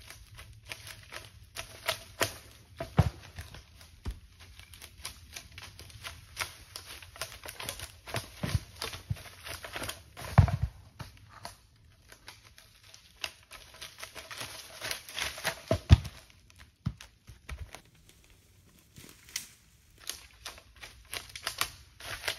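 Heavy firewood rounds tumbling down a steep, brushy slope: irregular knocks and crackling of brush, broken by several heavy thuds as the rounds hit the ground, the loudest about 3, 10 and 16 seconds in.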